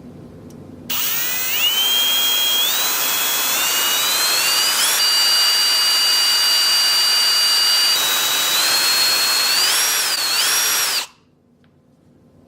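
Electric drill boring a hole into an iPhone 7 to make a headphone jack. It starts about a second in, its whine rising in steps, then holding steady, then wavering, and it cuts off suddenly near the end.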